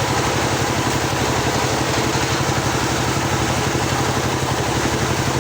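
Engine of a homemade circular-saw sawmill running steadily with an even, pulsing beat, the blade not cutting.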